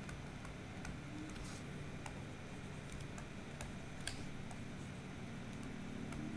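Faint, irregular ticks and taps of a stylus on a tablet screen as words are handwritten, over a steady low hum.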